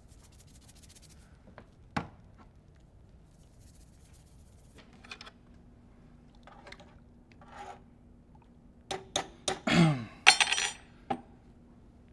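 Objects being handled: a single knock about two seconds in, light rustling, then a loud burst of scraping and clattering with a short falling squeak near the end.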